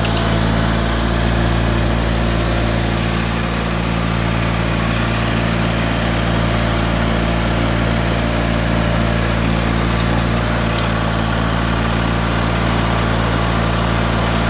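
John Deere 318 garden tractor's two-cylinder Onan engine running at a steady speed with the snowblower mounted, heard close up from the seat.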